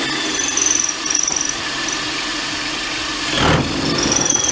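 Parkside cordless hammer drill-driver, hammer action switched off, running steadily in speed setting 2 as an 8 mm bit bores down into plaster and hollow brick. The motor whirs and the bit grinds, with a faint high squeal. The sound swells briefly a little past three seconds in.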